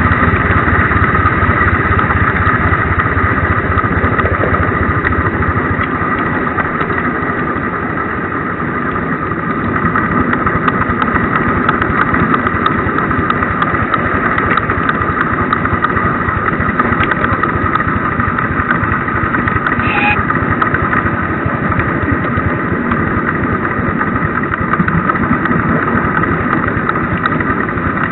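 Miniature 7¼ inch gauge GWR King Class 4-6-0 steam locomotive running: a steady mechanical sound of rapid beats with two steady high tones over it.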